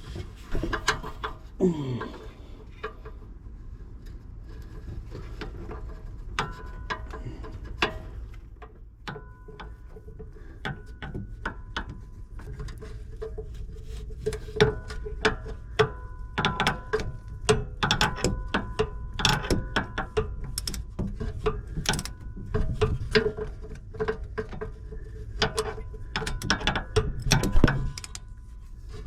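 Ratchet wrench clicking in runs of rapid clicks, sparse at first and then coming thick and fast from about a third of the way in, as the bolts of a hydraulic pump cover are tightened down over a new O-ring.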